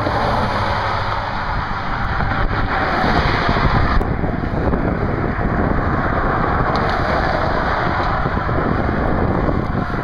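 Wind buffeting the microphone of a camera carried on a moving bicycle, a steady loud rushing, mixed with the noise of highway traffic.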